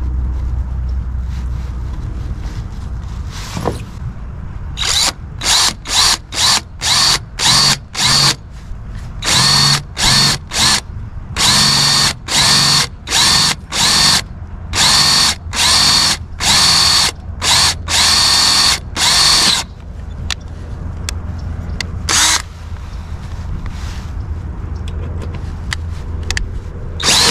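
DeWalt cordless drill boring a hole into a sailboat mast for a threaded screw, run in many short trigger bursts of motor whine, about twenty of them, followed by one more burst a couple of seconds later. A steady low wind rumble runs underneath.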